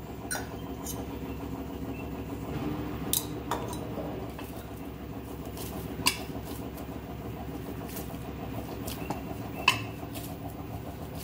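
Dough being kneaded and pressed in a stainless steel plate, with a few sharp clinks and taps against the steel, the loudest about six seconds in and near the end. Under it runs a steady hum, like a fan or appliance motor.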